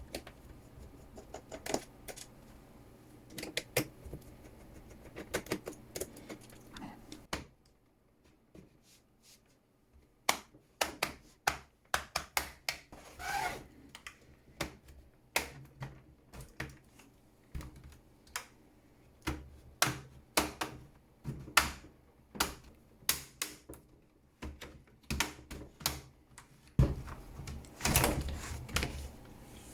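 Irregular sharp plastic clicks and snaps as the bottom case of an HP 17-x laptop is worked open, with its clips releasing one after another. There is a short quiet pause about a third of the way in.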